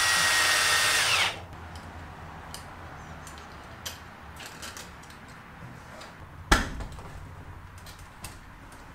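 Cordless drill running for about a second overhead, driving a screw into a ceiling joist, its motor whine dipping slightly before it stops. Then light clicks and one sharp knock about six and a half seconds in as the LED shop light fixture is pushed up into its clip-in bracket.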